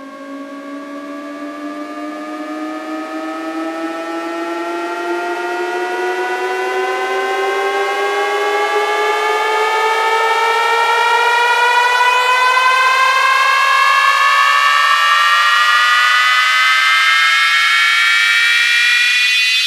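Synthesized riser from an electronic DJ sound-check track: a buzzy, siren-like tone that climbs slowly and steadily in pitch while growing louder, with a second layer of tones gliding up across it.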